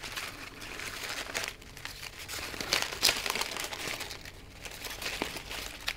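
Florist ribbon crinkling as hands pull and twist its loops into a pom-pom bow: irregular small crackles, a few sharper ones in the middle.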